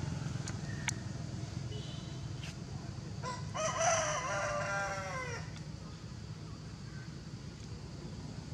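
A rooster crowing once, about two seconds long, its pitch dropping at the end, over a steady low rumble.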